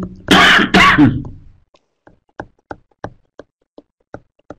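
A short, loud voice sound in the first second, then a steady run of sharp taps, about three a second, from a pen or marker striking the writing surface as the region outside a Venn-diagram circle is shaded with quick strokes.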